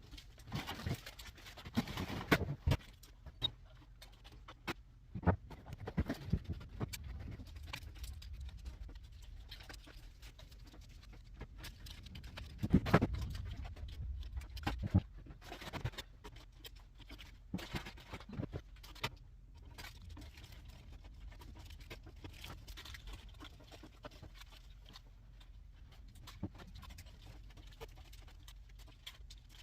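Scattered light knocks, taps and rustles of snack items and packets being handled and set into a vending machine during restocking, with a busier cluster of knocks about 13 seconds in.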